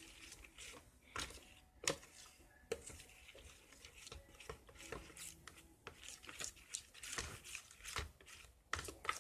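Stirring a runny glue, water and glitter-glue slime base in a bowl: a faint, irregular run of scrapes and light clicks of the stirring utensil against the bowl.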